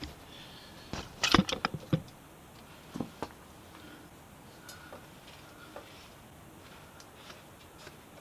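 Sharp clicks and knocks of handling during work on a motorcycle chain: a quick cluster about a second in, two more around three seconds, then faint scattered ticks.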